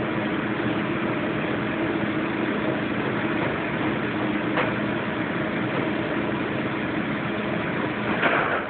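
Steady mechanical hum and noise, with a faint click about four and a half seconds in and another near the end.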